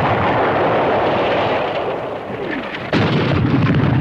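Artillery shell explosions on a war-film soundtrack: a sustained rumbling blast, then a fresh loud explosion about three seconds in, just after a short falling whistle.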